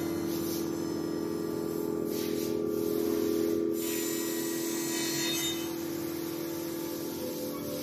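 Weijing GV1200 casting fettling machine running, its large grinding wheel spinning with a steady whine and grinding a casting. The grinding is loudest in the middle and eases off over the last couple of seconds.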